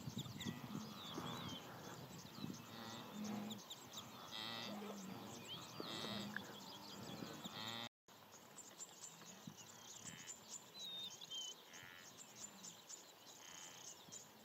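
Herd of blue wildebeest grunting and lowing in repeated short, nasal moans, with birds chirping and insects ticking in the background.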